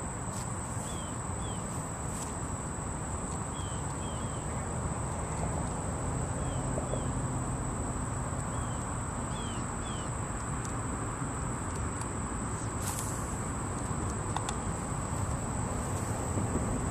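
Outdoor ambience: a steady high-pitched insect drone over a soft hiss, with a few short bird chirps here and there.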